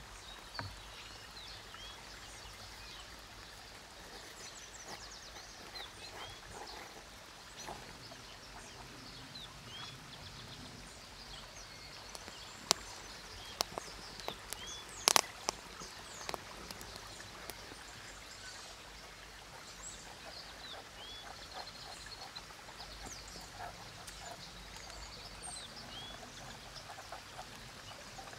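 Steady rush of a river with small birds chirping throughout. About halfway through, a few seconds of sharp pops and cracks from a burning wood fire, the loudest near the middle of that stretch.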